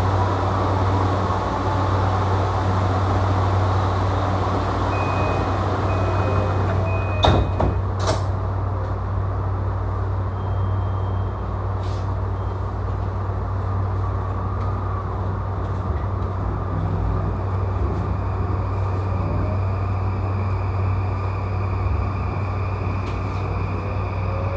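Inside an E235-series commuter train: the door-closing chime sounds three short beeps, then the doors shut with two sharp knocks about a third of the way in. Over a steady low cabin hum, a rising whine from the traction motors starts near the end as the train pulls away.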